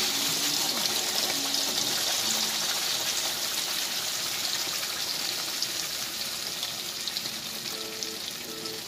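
Blended peanut paste sizzling as it is poured from a blender jug into hot oil in a wok: a steady frying hiss that slowly fades toward the end.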